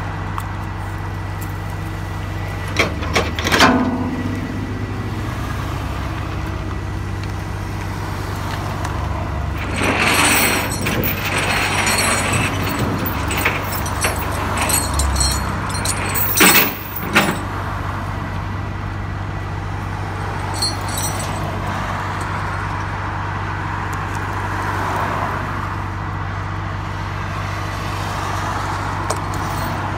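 Tow truck's engine idling steadily, with metal clanks and rattles of tow hooks and chains being handled and attached to a car's rear: a few seconds in, again between about ten and thirteen seconds, and sharply around sixteen seconds. Road traffic passes in the background.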